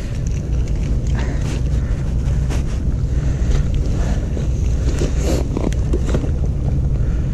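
Wind buffeting the microphone: a steady low rumble, with faint rustling and clicks from gloved hands and clothing.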